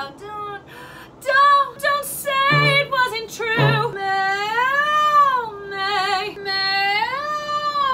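A woman singing unaccompanied: short phrases with wide vibrato, then long held notes that bend up and back down in pitch.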